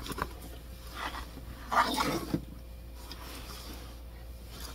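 Denim shorts being unfolded and handled, giving a few brief rustles and scrapes of stiff fabric.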